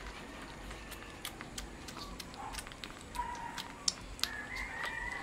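Shih Tzu puppy chewing and smacking on raw chicken meat held to its mouth by hand: a steady run of quick wet clicks. Short high-pitched animal calls come in about three seconds in and again near the end.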